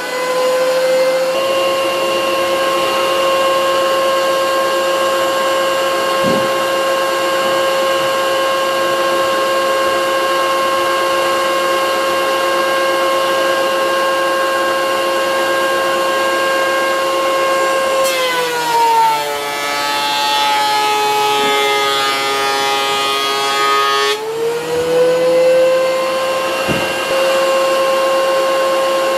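DeWalt benchtop thickness planer running with a steady high whine. About 18 seconds in, its pitch sags and a rougher cutting noise comes in as the cutterhead takes a board under load; near 25 seconds the pitch climbs back as the board clears.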